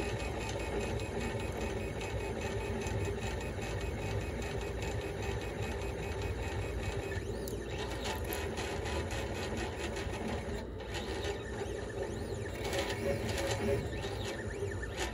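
Monoprice MP Select Mini 3D printer printing: its stepper motors whir and buzz as the print head and bed move, over a steady mechanical drone. In the second half the moves get busier, with quick rattling ticks.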